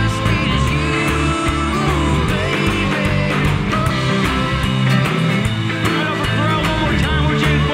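Rock music led by guitar, with drum hits keeping a steady beat.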